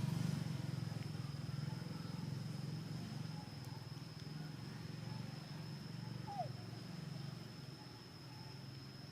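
A low motor drone that slowly fades away, under a steady high insect-like whine. About six seconds in comes one short falling animal call.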